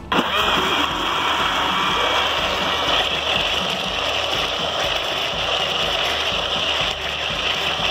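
Electric blender switched on suddenly and running steadily at speed, grinding a thick wet paste of green chillies, oil and lemon juice.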